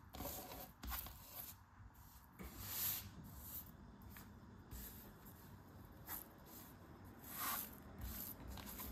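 Craft knife blade scraping and cutting into molded kinetic sand, giving soft gritty crumbling strokes. Several separate strokes, the strongest about three seconds in and again about seven and a half seconds in.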